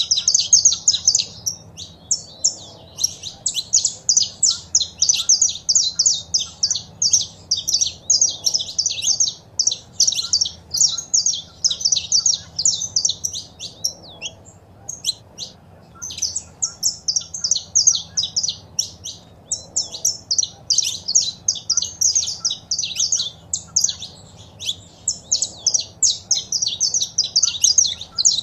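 Saffron finch calls and song: rapid runs of high chirping notes, packed close together, with a brief lull about halfway.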